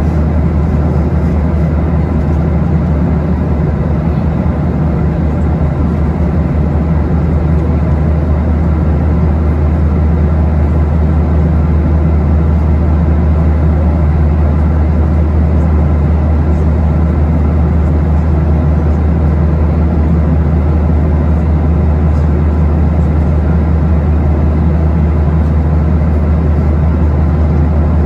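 Steady cabin noise of a Boeing 737-800 in flight: the constant drone of the engines and airflow past the fuselage, with a strong low hum under it.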